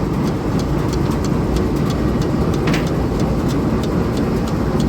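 Antique Champion upright leather sewing machine and its belt-driven line-shaft drive running steadily, a mechanical rumble with light regular clicks about four times a second.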